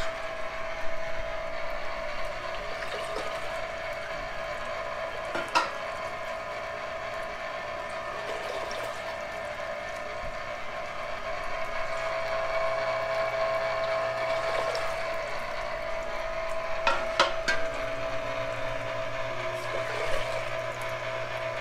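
Electric tomato strainer running steadily, its geared motor giving a constant hum with a steady whine while the auger presses tomato juice through the screen to separate out the seeds. A few short knocks come about five seconds in and again around seventeen seconds.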